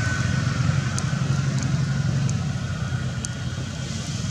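A steady low engine hum, like a motor vehicle running nearby, with a few faint clicks.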